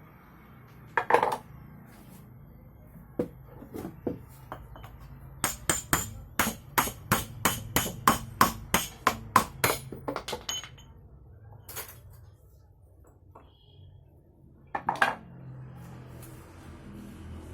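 Sharp metallic taps, as of a hammer or tool striking metal parts: a few single knocks, then a quick even run of about fifteen over four or five seconds.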